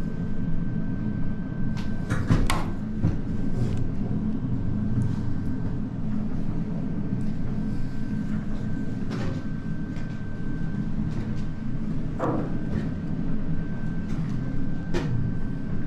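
Strong wind buffeting the lighthouse and the microphone: a steady low rumble, with a handful of sharp knocks and a faint steady high tone.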